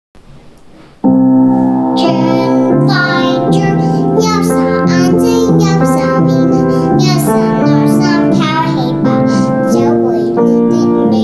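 Piano-led backing track of a Cantonese song, starting suddenly about a second in, with a young girl singing along.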